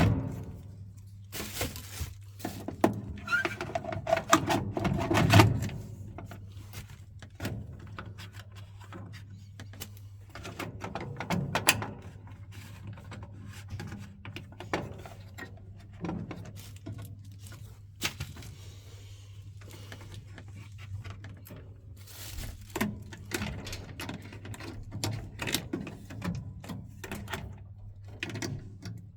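Scattered clicks, taps and knocks of hands and tools handling boiler parts, over a steady low hum.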